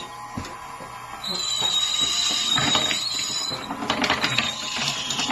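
Marbles rolling and clattering along a wooden marble run, a dense run of small clicks and rattles that picks up about a second in.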